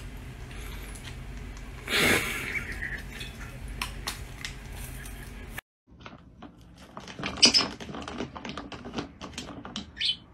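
Toothbrush scrubbing with a brief louder burst about two seconds in. Then, after a sudden cut, a rosy-faced lovebird on a plastic swing-top bin sets off rapid light clicks and taps on the plastic, with a couple of short high chirps.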